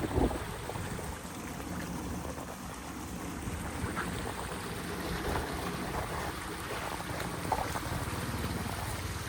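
Steady rush of running water with wind buffeting the microphone, and a brief thump right at the start.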